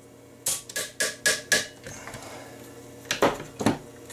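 Sharp clicks and knocks of a 30-amp double-pole circuit breaker being worked into place in a manual transfer switch's breaker panel: five quick clicks, about four a second, then two louder knocks about three seconds in.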